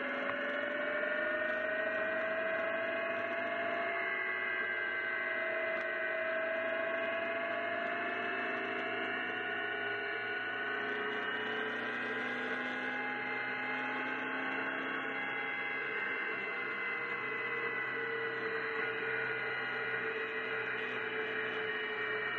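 GBS Zero open-top kit car cruising along a road: a steady engine drone whose pitch drifts slowly up and down with road speed, over a constant rush of noise.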